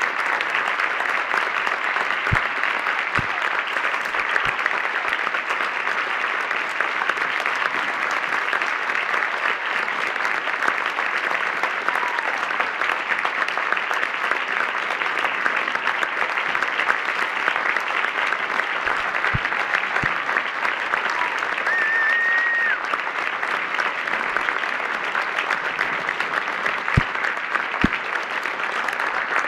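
Audience applauding steadily, a long unbroken round of clapping.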